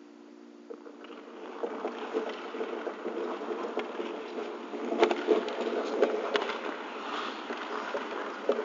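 Hockey skate blades scraping and carving on rink ice as players skate past close by, building up about a second and a half in, with a few sharp clacks of sticks and puck, the loudest about five seconds in.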